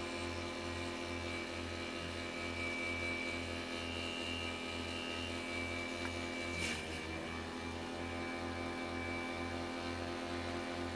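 Electric water-pump motor driving a homemade vegetable chopper's cutting blade, running with a steady hum. About two-thirds of the way through it dips briefly in pitch with a short noisy hit, then climbs back to speed.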